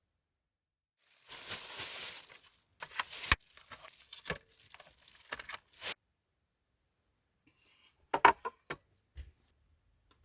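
Packaging torn open and crinkled, followed by a run of sharp clicks and knocks, and a few more clicks near the end.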